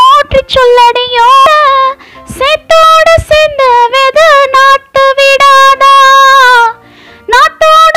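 A Tamil Pongal song sung by a single high voice in long held notes and short melodic turns, with a brief break about two seconds in. A long held note falls away about seven seconds in before the next phrase begins.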